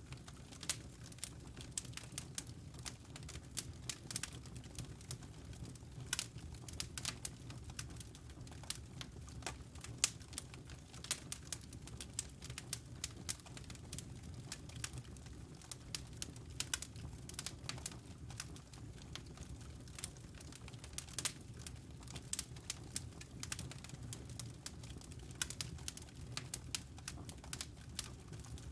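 Wood fire crackling in a fireplace: many small, irregular pops and snaps over a low, steady rumble.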